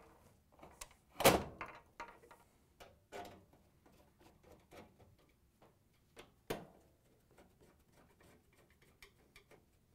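Knocks and clicks of a Whirlpool Duet dryer's control console and sheet-metal cabinet being handled and fitted together: a sharp thunk about a second in, a second one about six and a half seconds in, and small clicks and rattles between.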